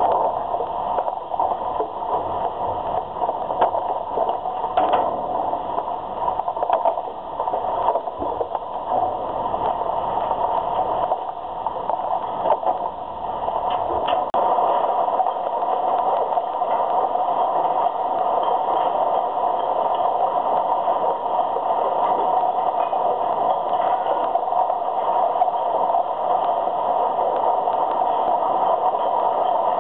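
Steady machinery din of a recycling sorting line, with conveyor belts and a roller sorting screen running. Short clatters of material come now and then.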